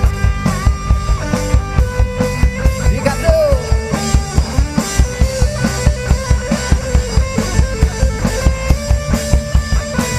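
A rock band playing an instrumental passage without vocals: a driving drum beat of about four hits a second under sustained electric guitar, with a bent, gliding note about three seconds in.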